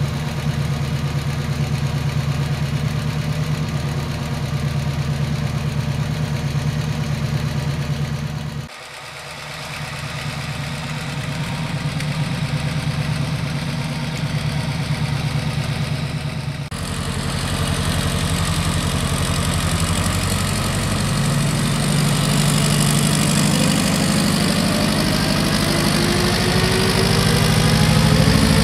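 Brantly B-2B helicopter's Lycoming piston engine running at low speed during start-up warm-up, main rotor turning slowly. The sound dips sharply for a moment about nine seconds in, and over the last several seconds the pitch rises steadily as engine and rotor speed up.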